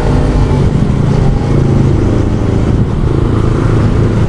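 Small motorcycle engine running steadily at low road speed, heard from the rider's seat, with rushing wind noise on the microphone.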